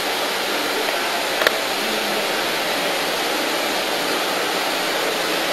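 Steady, even hiss with one short click about one and a half seconds in.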